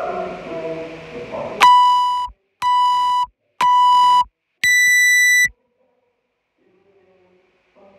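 Workout countdown timer beeping: three beeps at one pitch about a second apart, then a higher-pitched final beep marking the start of the workout.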